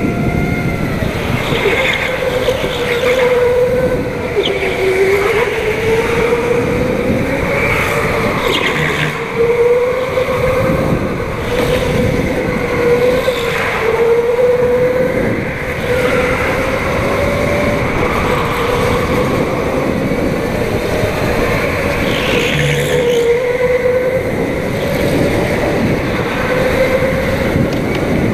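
Go-kart running at racing pace, heard from onboard, its motor note rising and falling again and again through the corners and straights, with a few brief knocks.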